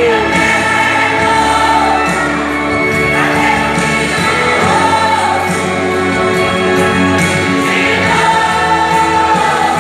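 A vocal group singing a Christian worship song, holding long sustained notes over steady instrumental backing.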